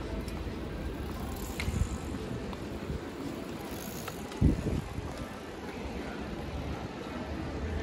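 Busy city street ambience: a steady low rumble of traffic with cyclists passing, and a short low thump about halfway through.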